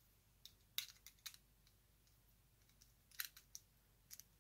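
Faint, sharp clicks and taps of small lamp socket parts handled in the fingers, in two short clusters with a pause between them.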